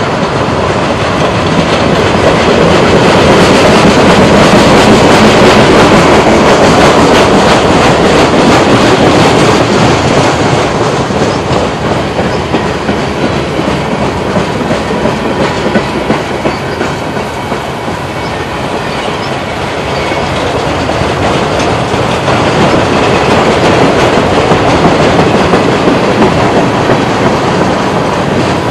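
Loaded freight-train flatcars rolling past close by: continuous wheel-on-rail noise with fine clicking of the wheels over the track. It grows louder a few seconds in, eases around the middle and builds again near the end.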